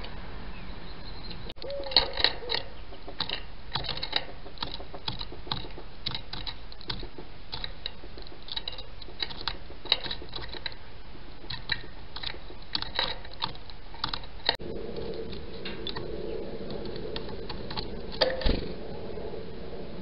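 Rapid, irregular taps and clicks of a great tit pecking at peanuts in a wire-mesh feeder, with a few louder knocks.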